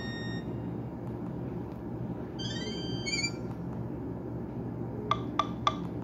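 Nokia N76 ringtones playing through a Nokia 130's small speaker: one tune's last notes die away at the start, a brief faint run of notes comes in the middle, and three short sharp chirps about a third of a second apart sound near the end. Steady low background noise runs underneath.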